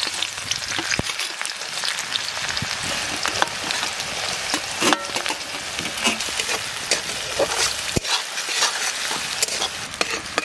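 Chopped garlic, ginger and onion sizzling and crackling in hot vegetable oil in a metal pan, with a spatula stirring them near the end.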